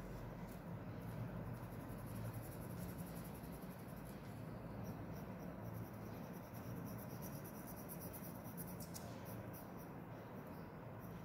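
Black marker pen drawing strokes on paper: a faint, fine scratching over a steady low hum.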